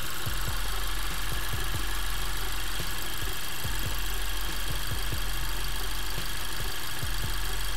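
Honda Civic Type R's K20C1 turbocharged four-cylinder idling steadily, with scattered short low thumps. The engine is running to heat-cycle the freshly filled cooling system and burp the air out.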